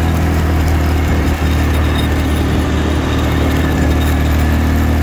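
Small vehicle engine running steadily at a constant pace while driving along a dirt track, with tyre and road noise over a low engine hum; a brief dip in level about a second and a half in.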